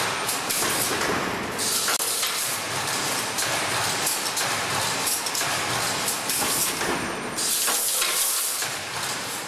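Wire-spacer welding machine running: a steady mechanical clatter and hiss, with louder bursts of hissing about a second and a half in and again near the end.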